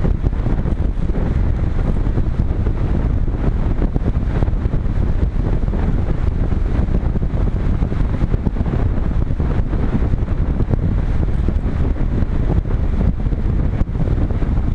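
Steady wind rushing over a GoPro camera mounted on a Multiplex Cularis RC glider in flight, a loud, even rumble strongest in the low end.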